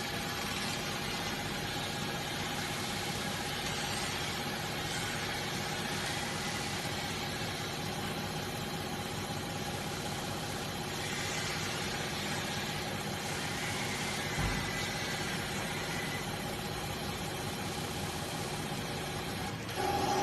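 Diesel injector test bench running: a steady machine hum with a constant whine, growing louder just before the end.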